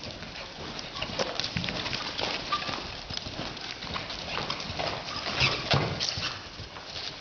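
Hoofbeats of a loping horse and a running steer on loose arena dirt: quick, irregular thuds and scuffs, the two loudest about two-thirds of the way through.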